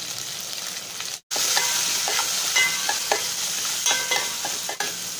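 Sliced onions frying in oil with urad dal and dried red chillies, sizzling steadily while a steel spoon stirs and clinks against the steel pot; the onions are being sautéed until soft. The sound drops out for a moment about a second in, then returns louder.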